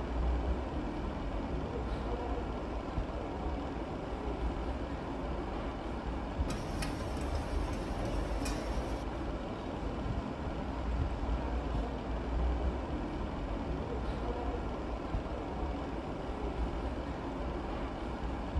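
Steady low rumble of background noise, with a short stretch of hiss and a few clicks about seven to nine seconds in.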